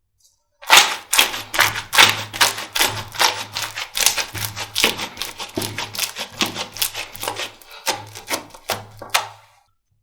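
Slime being squeezed and pressed by hand, giving a quick run of sharp clicks and pops, about four or five a second, that slowly grow fainter and then stop near the end.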